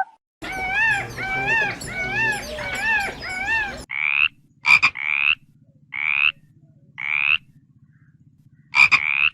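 Animal calls: a run of about six warbling calls that rise and fall in pitch, then after a brief break a series of short rising chirps about once a second over a low pulsing drone.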